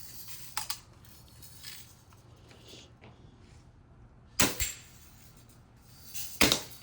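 Spring-piston Daisy Red Ryder BB guns being fired: short sharp pops, a faint one about half a second in, a loud double one about four and a half seconds in, and another near the end.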